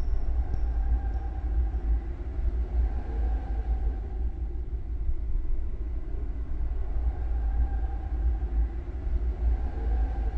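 Deep, steady rumble with faint wavering higher tones that swell and fade.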